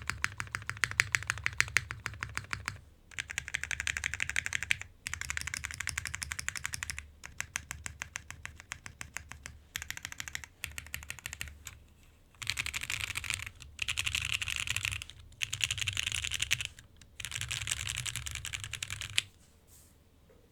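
Hoshizora custom mechanical keyboard with lubed Gateron Ink Black V2 linear switches on a polycarbonate plate, O-ring mount, with GMK keycaps, being typed on quickly in bursts of a few seconds with short pauses between them. The typing stops about a second before the end.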